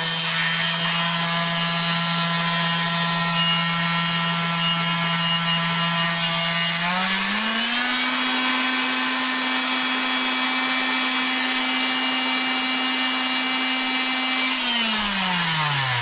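Fein oscillating multi-tool with a large-toothed blade running with a steady whine at low speed, stepped up to full speed about seven seconds in, then switched off near the end and winding down.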